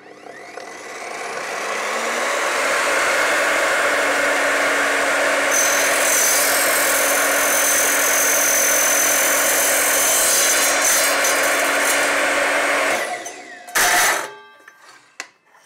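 Evolution R255SMS sliding mitre saw's motor spinning up and running, its blade cutting through a copper pipe with a high steady whine for several seconds. The motor then switches off and winds down, and a sharp clack follows about a second later.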